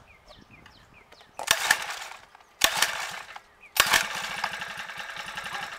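Bike Berry 49cc four-stroke motorized-bicycle engine being started: it fires up suddenly three times about a second apart. The first two die out at once, and the third catches and runs with a fast even beat for about two seconds before dying away.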